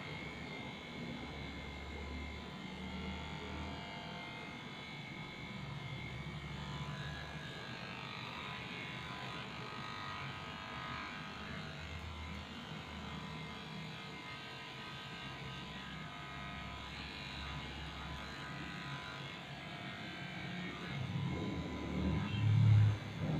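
Cordless electric dog clipper buzzing steadily as it clips hair from a Shih Tzu's face and muzzle. A louder low rumble builds near the end.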